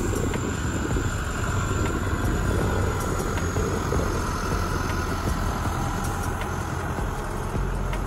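Farm tractor's diesel engine running steadily at low speed as it tows a beach-cleaning machine across the sand, with a steady whine above the engine note.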